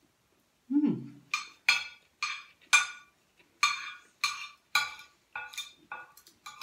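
Metal spoon and fork clinking and scraping against a plate as food is cut and gathered: about a dozen sharp clinks, roughly two a second, starting about a second in. A short low hum comes just before the first clink.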